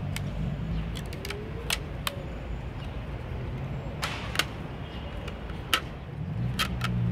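Cardboard pieces of a Google Cardboard viewer being handled and fitted together: scattered sharp clicks and taps as tabs are pressed into slots, over a steady low background rumble.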